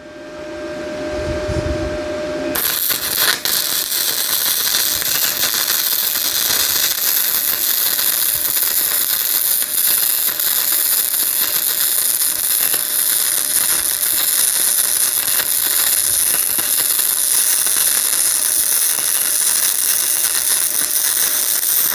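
A faint steady hum, then about two and a half seconds in the arc strikes and a gasless flux-core wire-feed weld from a Yeswelder DP200 on automatic settings crackles and sizzles steadily. The welder reckons it could use a little more wire speed.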